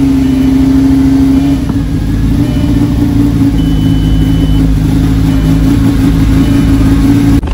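Car engine holding a steady fast idle just after a cold start.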